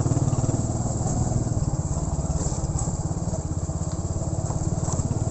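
Motorcycle engine running steadily while riding, with a fast even firing pulse.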